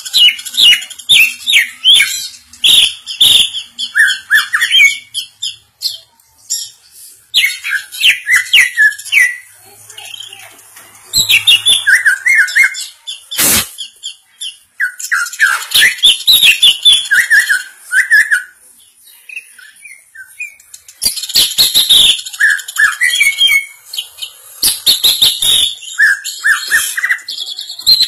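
Greater green leafbird singing in loud phrases of rapid chirps and warbles, each run lasting a few seconds, with short pauses between. A single sharp knock sounds about halfway through.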